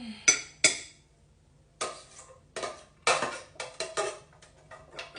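Kitchenware being handled on a countertop: two sharp clinks early on, then a quicker run of knocks and clatters from about two seconds in.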